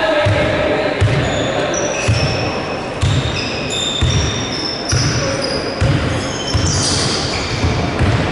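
Basketball being dribbled on a court, bouncing about once a second, with short high squeaks scattered through it.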